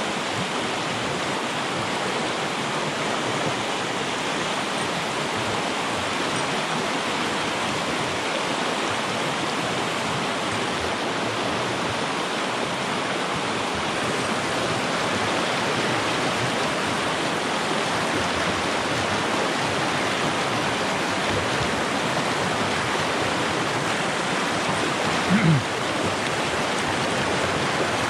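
Fast-flowing river rushing over rocks in a shallow white-water riffle, a steady, loud wash of water. Near the end a short low-pitched sound briefly stands out above it.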